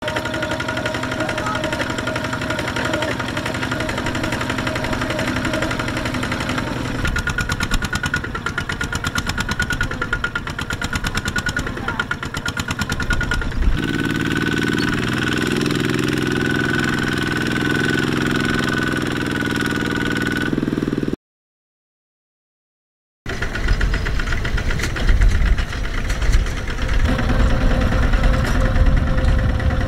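Single-cylinder diesel engine of a Kubota two-wheel walking tractor running with an even, rapid beat. Its note changes a few times between clips, and the sound cuts out completely for about two seconds about two-thirds of the way through.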